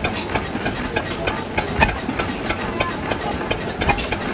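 Old Deutz stationary diesel engine running slowly just after a cold start, a steady rapid train of knocks with two louder bangs about two seconds apart.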